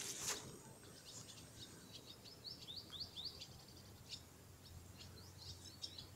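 Small birds chirping faintly in quick, short rising notes, thickest in the second half, after a short burst of noise right at the start.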